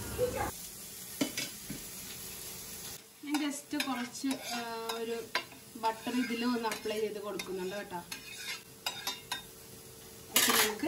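Vegetables sautéing in butter in a pan, sizzling lightly while a spatula stirs and scrapes against the pan. The clicks and scrapes become busier about three seconds in.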